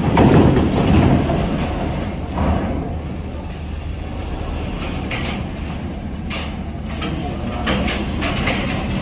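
Steady low diesel engine rumble from heavy vehicles, with a few short clanks and knocks in the second half.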